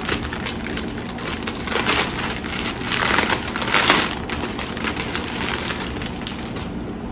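Clear plastic bag crinkling and rustling as it is handled and opened, loudest around three to four seconds in.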